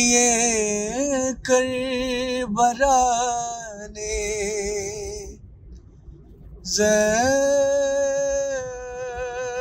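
Solo voice chanting a noha, a Muharram lament, unaccompanied, in long held notes with wavering pitch; the phrase breaks off for about a second midway, then a new phrase begins.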